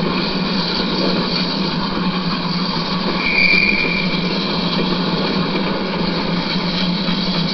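Model trains running on a model railway layout: a steady mechanical whirr and rumble of motors and wheels on track, with a brief high-pitched tone a little past three seconds in.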